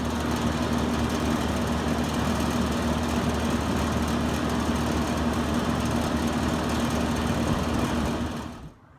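BDP 542 package heat pump running: a steady compressor hum under the broad rush of the outdoor fan. It cuts off suddenly near the end.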